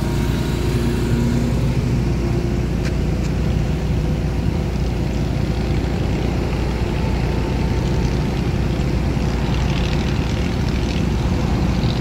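Steady low rumble of vehicle engines and road traffic, with no horn sounding.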